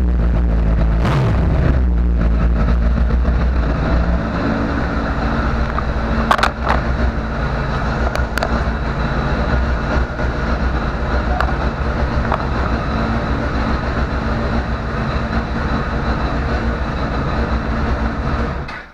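Honda CBR1000RR inline-four engine running through its stock, undrilled exhaust silencer. It is revved briefly in the first couple of seconds, then settles to a steady idle, and cuts off near the end.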